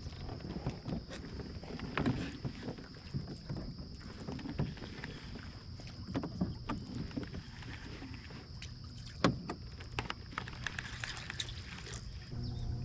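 Kayak on the water: scattered light knocks and water sounds around the hull as the boat and gear are handled, over a low rumble, with a faint steady high-pitched whine throughout.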